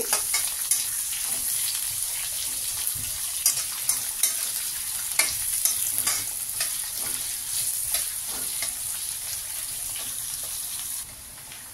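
Sliced onions frying in hot oil in a kadhai, a steady sizzle, stirred with a metal spoon that scrapes and clicks against the pan again and again. The sound drops in level near the end.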